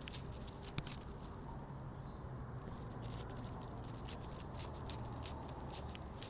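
Fluttering sound effect standing for a butterfly's wing flaps: soft, irregular rustling patter over a low steady hum, with one sharp click about a second in.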